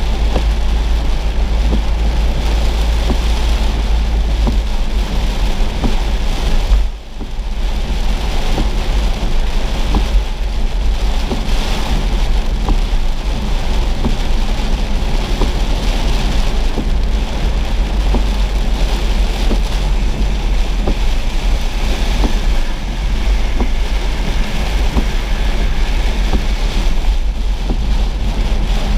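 Rain pattering on a moving car's windshield and roof over steady road and wind rumble, heard from inside the car. The noise drops briefly about seven seconds in.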